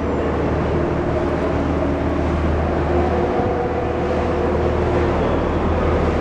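Yakatabune houseboat's engine running steadily on board: a constant low hum with a few steady higher tones over it.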